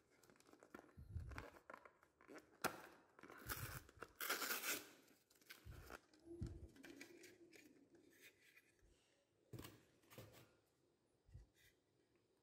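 Plastic blister packaging crackling and tearing as it is pried open and the SSD is pulled out, in irregular bursts that are loudest a few seconds in, then a few faint clicks of handling.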